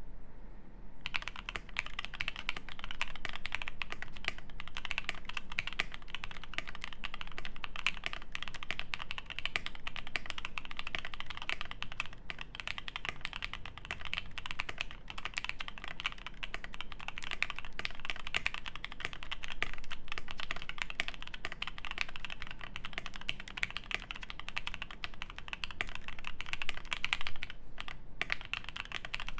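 Fast, continuous typing on a Primus75 mechanical keyboard with lubed Alpaca linear switches, a polycarbonate plate, GMK keycaps, and tape and PE mods: a dense stream of key clacks that starts about a second in and pauses briefly near the end.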